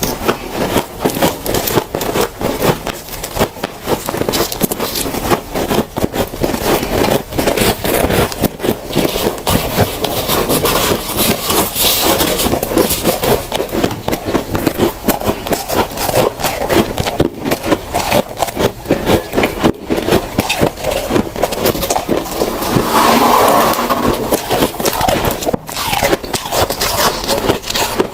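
Close-up crunching of soft, powdery freezer frost as it is bitten and chewed: a dense, uneven run of crisp crackles without a break.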